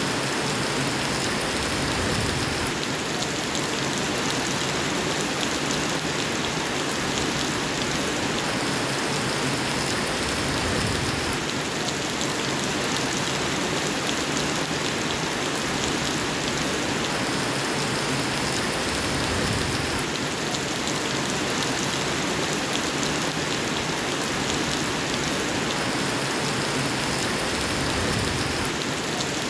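Steady rain falling, an even hiss of drops with no thunder. The same stretch of rain repeats about every nine seconds, as in a looped recording.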